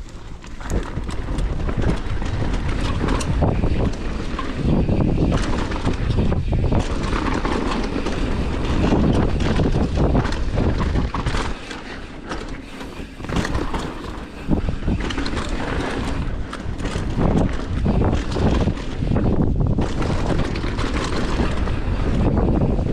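Commencal Meta AM 29 mountain bike ridden fast down a rough, rocky trail: wind rushing over the microphone, with tyres on dirt and rock and the bike rattling and clattering over constant hits. It picks up under a second in.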